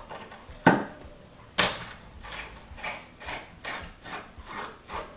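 Two sharp knocks, then a regular run of back-and-forth scraping or rubbing strokes, about three a second, from hand work on a part.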